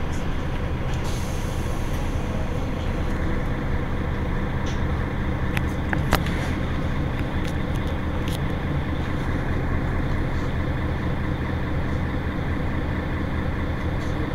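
Mercedes-Benz Citaro G C2 articulated city bus standing with its engine idling steadily. A few short sharp clicks come around six and eight seconds in.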